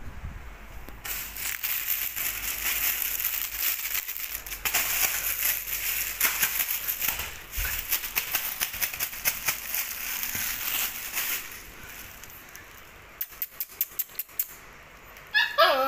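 A dense, scratchy rattling noise for about ten seconds, then a quick run of about eight sharp clicks, and near the end a short high yelp from a golden retriever puppy, falling in pitch.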